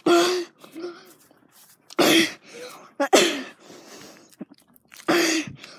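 A person breathing hard: four loud, hissy breaths or gasps close to the microphone, spaced about one to two seconds apart.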